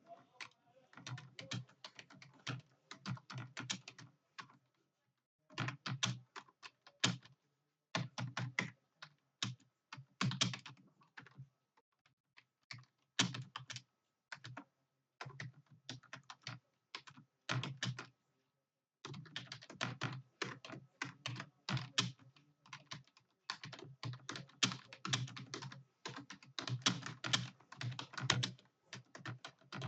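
Computer keyboard being typed on fast, in dense runs of keystrokes broken by a few short pauses of about a second.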